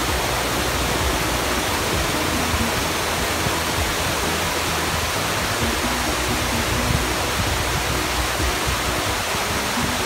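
Small cascade of white water pouring down a narrow stone-walled channel, a steady, even rush of water.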